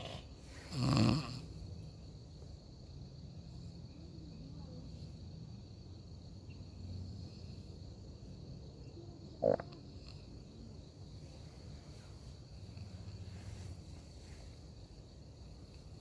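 Snoring: one big snort about a second in and a shorter, sharper one about nine and a half seconds in, with softer low snoring breaths between.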